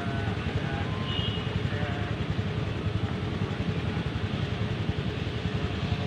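Steady road noise from a moving vehicle: an even engine and traffic rumble with a low, fluttering wind rumble on the microphone.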